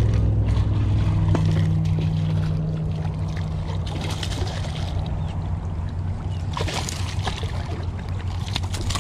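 A small hooked snook splashing at the water's surface as it is reeled in to the rocks, with a spell of splashing about four seconds in and another near seven seconds. Under it runs a steady low engine hum.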